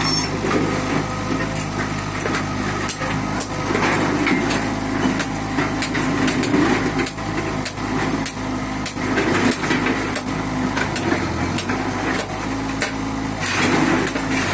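Old Airman AX30 mini excavator's diesel engine running steadily as it works, with frequent irregular clanks and knocks of scrap iron being moved by the bucket.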